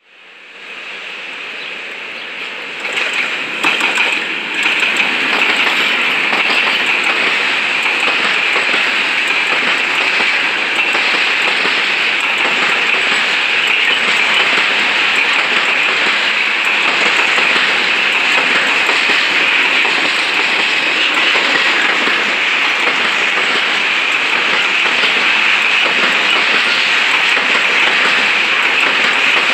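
Freight train of tank wagons rolling past behind an ET22 electric locomotive: a steady loud rush of steel wheels on rail that builds over the first few seconds, with a few clacks as the locomotive draws level about four seconds in.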